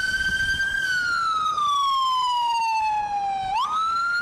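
Ambulance siren wailing: its pitch sweeps up, holds, then falls slowly for nearly three seconds before sweeping quickly up again near the end.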